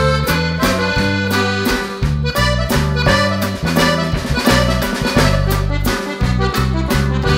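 Background music: a melody of held notes over a moving bass line and a steady beat.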